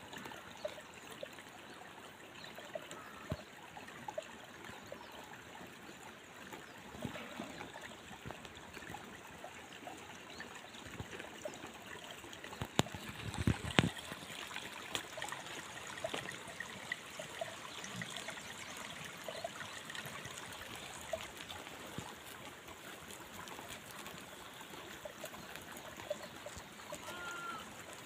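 Steady rushing of a mountain stream, with scattered small clicks and knocks over it. A louder low bump comes about halfway through, and a short high call near the end.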